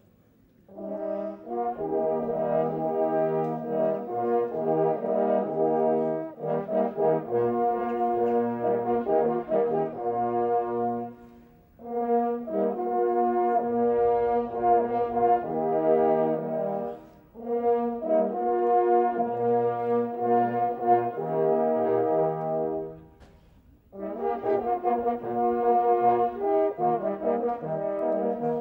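Ensemble of E-flat parforce hunting horns playing a piece in several parts, in full chords. It starts about a second in and goes in phrases separated by three brief pauses.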